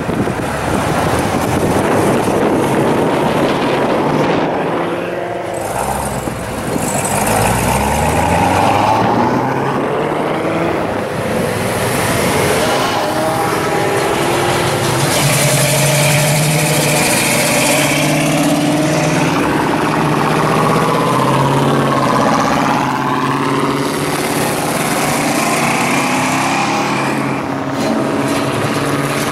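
Exhaust from several hot-rodded cars, a C7 Corvette, a Chevy Nova and a Chevelle, pulling out one after another and accelerating away. Engine pitch climbs and drops again and again as they rev.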